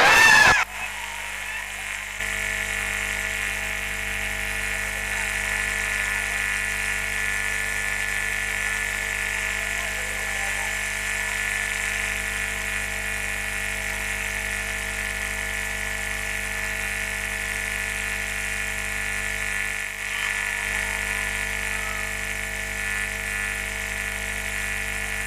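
A steady electric buzz holding one pitch, with a brief dip about twenty seconds in.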